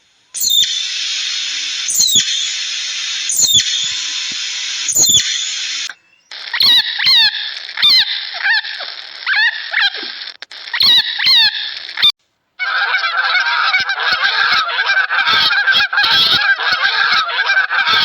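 Geese honking in three short back-to-back clips: first a few spaced honks over a steady hiss, then a run of repeated falling honks, then a dense, overlapping flock chatter.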